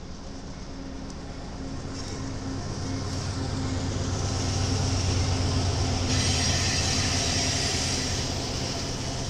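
A train passing: a low rumble that builds over several seconds, peaks past the middle with added hiss, then eases off near the end.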